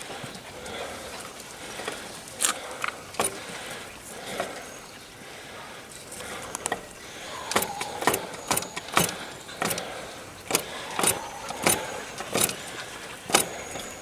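Sharp metallic clinks and knocks from work on a motorcycle wheel during a flat-tyre repair, irregular, a few at first and then one or two a second in the second half, some with a short ring.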